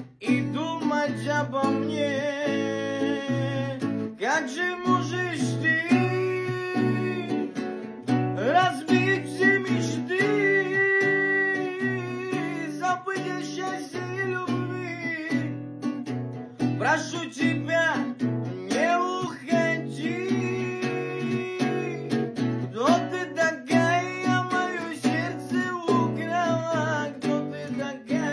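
Instrumental break of a song: a guitar plays the melody, with bent, gliding notes, over a steady plucked bass accompaniment.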